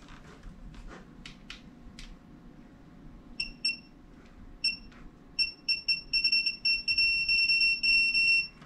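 Digital torque wrench beeping as a bolt is tightened, after a few soft clicks. At first there are single high beeps, then from about halfway they come faster and run together into one near-steady tone near the end, the signal that the set torque has been reached.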